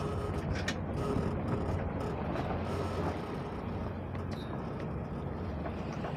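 Steady rush of wind and water aboard a sailboat under way, with a few light knocks and short squeaks from gear being handled, including a sharp click under a second in.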